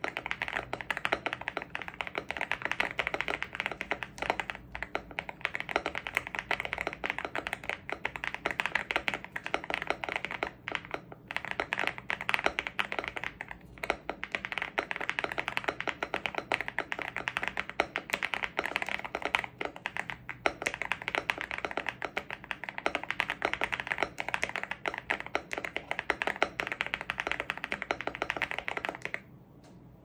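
Fast typing on a gasket-mounted Evo80 mechanical keyboard with Oat linear switches on a polypropylene plate and PBT keycaps: a dense, continuous stream of key clacks with a few short pauses, stopping near the end.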